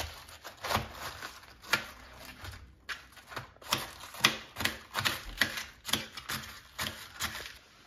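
Knife slicing a head of cabbage on a plastic cutting board: a series of sharp cuts, roughly two a second, at an uneven pace.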